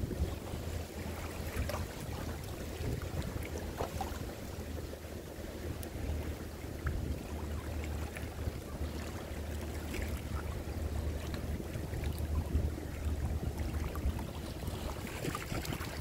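Waterside ambience: a steady low rumble under gently lapping water, with scattered faint clicks and a few brief high chirps.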